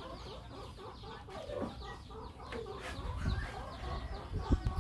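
A run of short, repeated chirpy animal calls, with a few low thumps near the end.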